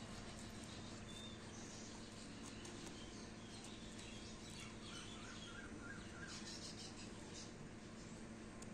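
Faint outdoor ambience with a steady low hum, a few short bird chirps, and light snips of scissors cutting paper.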